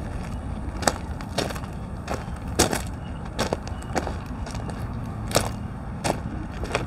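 Footsteps crunching on gravel track ballast, about a step and a half per second, over a steady low rumble.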